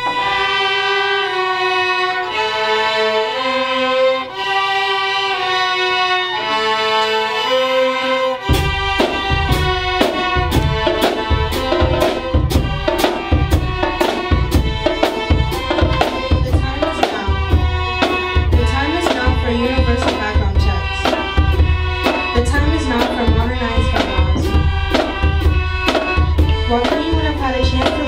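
Student violins play a slow melody in long bowed notes. About eight seconds in, a bass drum and snare drums come in with a steady beat under the strings.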